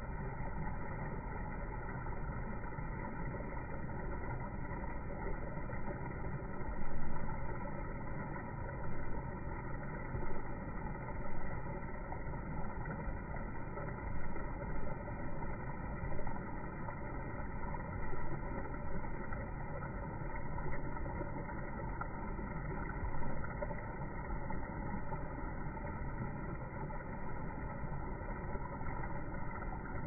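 Steady low rumbling background noise with a few brief swells in loudness.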